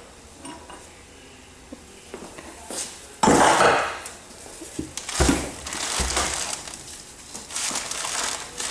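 Hammer blows tapping on a 1973 Honda CB450's aluminium crankcase to split the two halves apart, with metallic knocks and clatter. The loudest strike comes a little after three seconds in, and several more follow near the middle and end.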